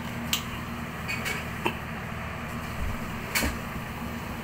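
Commercial ice maker running with a steady low electrical hum, which the technician says shows its system struggling on the 110 V supply. A few sharp clicks and knocks sound over it, the strongest about a third of a second in, near the middle and about three and a half seconds in.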